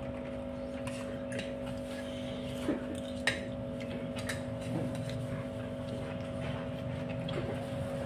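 Forks and spoons clicking and scraping against plates now and then, over a steady hum.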